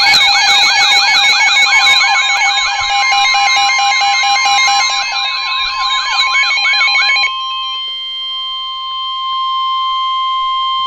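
Weather alert radio sounding a tornado warning alarm: a warbling siren sweep about four times a second over a pulsing beep, with the steady 1050 Hz NOAA Weather Radio warning tone joining about two seconds in. The warble stops about seven seconds in, leaving the warning tone alone until it cuts off abruptly near the end, the signal that the spoken warning message follows.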